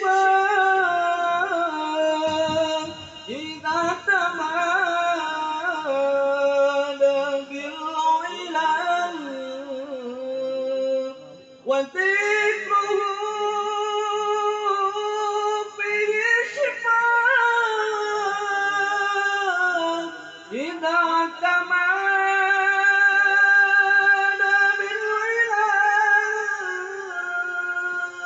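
A young man's solo voice singing in long, held phrases with ornamented, wavering notes, pausing briefly for breath twice.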